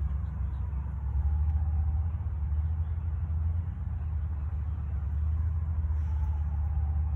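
Steady low rumble, with a faint tone falling slowly in pitch about a second in and again near the end.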